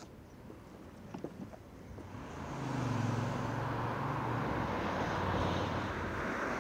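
A passing vehicle's engine: a low hum with a rushing noise rises about two seconds in, then holds steady.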